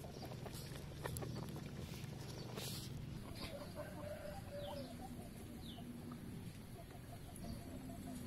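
Chickens clucking softly, over a low steady background noise.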